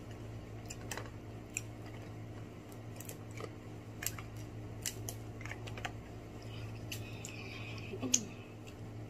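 Scattered small clicks and crackles from picking at and eating fried lobster, over a steady low hum; the sharpest click comes about eight seconds in.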